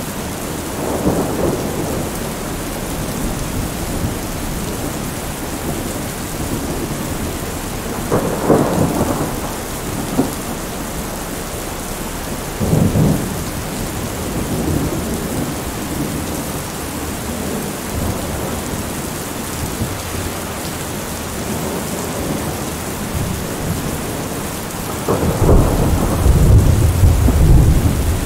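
Thunderstorm: steady heavy rain with rolling thunder. Several rumbles come through, and the longest, deepest and loudest rolls in near the end.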